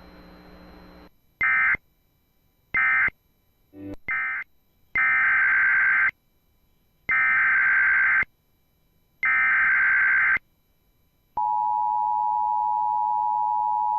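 Emergency Alert System data and attention tones. Three short bursts of raspy digital data, typical of SAME end-of-message codes, are followed by three longer bursts of about a second each, typical of the SAME header. About eleven seconds in, the steady two-note EAS attention signal begins and holds.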